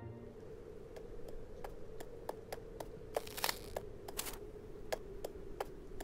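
Light, soft footsteps of a cartoon cat's paws pattering along a stone pond edge, sharp little clicks about three a second, with a short scuffing rustle midway. A faint steady hum sits underneath.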